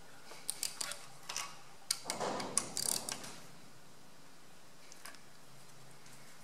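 Socket ratchet clicking in short runs, with a few sharp metal clinks, as a compression tester adaptor is fitted into an injector hole of a Perkins three-cylinder diesel. The clicking stops about three seconds in.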